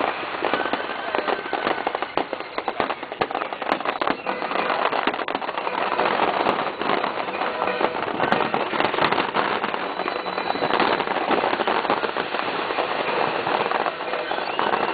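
Fireworks display: a dense, unbroken crackle of many small bangs and pops.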